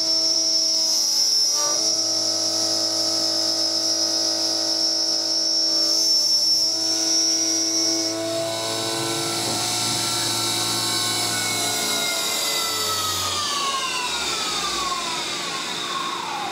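Brushless DC spindle motor of a small CNC mill whining steadily while an end mill cuts 6061 aluminium under flood coolant. From about halfway the whine falls steadily in pitch as the spindle winds down to a stop.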